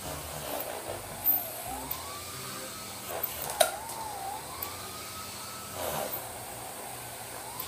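Siren wailing, its pitch sweeping slowly up and down, over a steady background rumble. Two sharp knocks cut in, the louder about halfway through.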